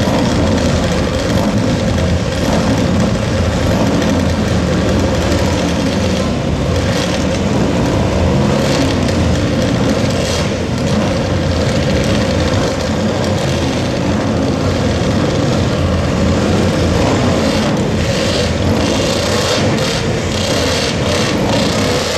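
Old racing engines running loudly and continuously, their pitch wavering, with several short surges of revving in the second half.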